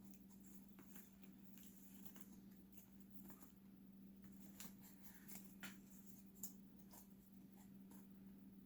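Near silence: faint scattered clicks and light rustles of paper photo cards being handled, over a steady low hum.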